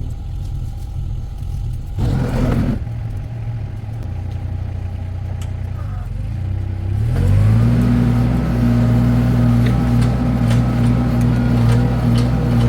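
Mini skid steer engine running at a low speed, then throttled up about seven seconds in and holding steady at a higher, louder speed, with light clattering. A short rushing burst about two seconds in.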